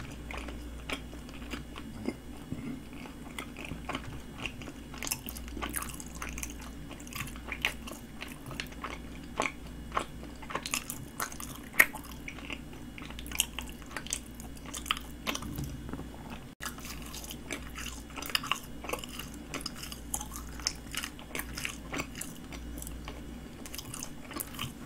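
Close-up mouth sounds of a person chewing a mini glutinous-rice donut: irregular wet smacks and small clicks, several a second.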